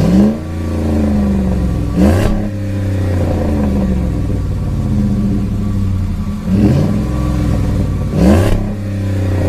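Dodge Ram 1500's 4.7-litre V8 idling with a steady exhaust note, blipped four times: each quick rev rises sharply in pitch and falls straight back to idle.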